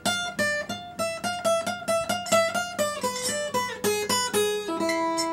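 Acoustic guitar, a black Stagg, played solo: a steady run of single picked notes forming a melody, slowing to a few longer held notes near the end.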